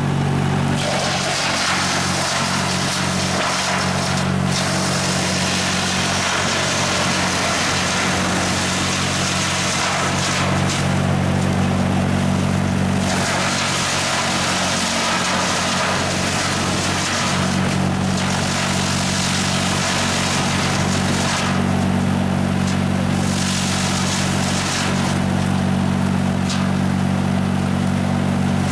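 Diesel engine of a mobile wood chipper running steadily under load, with a harsh grinding noise from the chipper that swells and fades every few seconds as wood is fed through.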